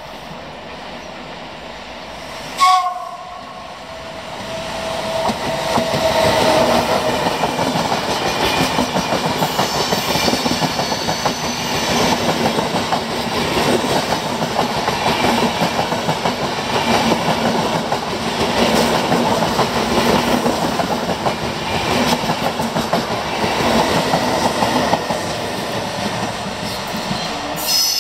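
An electric locomotive sounds a short two-tone horn blast about three seconds in. Then a passenger train of Intercity Notte coaches rolls past close by, with loud steady wheel-on-rail noise and rapid clicking over the rail joints.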